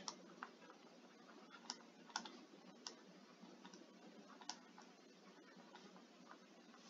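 A handful of faint, irregular clicks from a stylus tapping a tablet screen during handwriting, over near-silent room tone.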